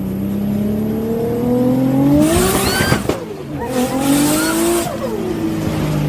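Car engine revving up and back down twice from inside the cabin, with two bursts of tyre squeal at the peaks of the revs, about two and four seconds in.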